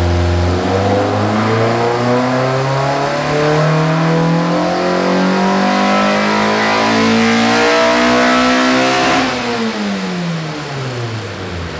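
Honda K24 inline-four engine making a full-throttle dyno pull with its intake cam timing set at 10 degrees. The revs climb steadily for about nine seconds, then the throttle closes and the revs fall away.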